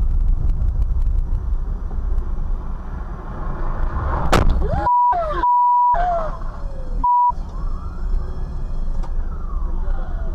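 Dashcam recording inside a moving car: steady road and engine rumble, a sharp bang about four seconds in, then three steady high beeps cut in with silent gaps over the audio. Pitch-gliding sounds come and go around the beeps.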